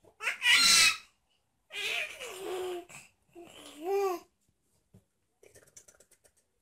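Baby squealing and babbling in three bursts: a loud, high squeal at the start, then two longer vocal sounds whose pitch rises and falls. A few faint clicks follow near the end.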